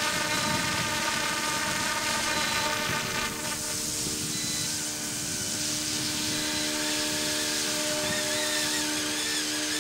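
Battery-electric RC AH-64 Apache scale helicopter flying overhead. Its motor and rotor give a steady whine of several pitched tones, and the higher tones change about three and a half seconds in. It is flying itself back under GPS return-to-home.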